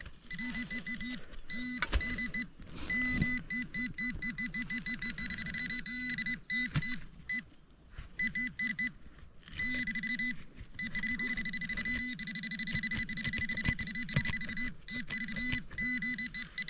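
Metal detector's electronic signal tones: a low warbling tone pulsing several times a second, over a higher steady buzzing tone that cuts out and comes back a few times.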